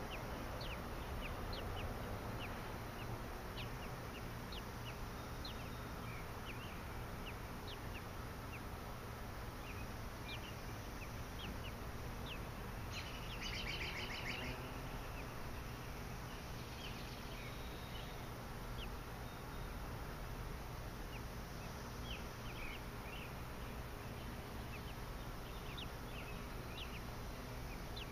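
Outdoor ambience of scattered short bird chirps, with a rapid trill about 13 seconds in, over a steady low rumble.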